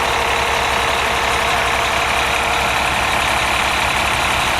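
Cummins diesel engine of a motorhome idling steadily, with an even low throb.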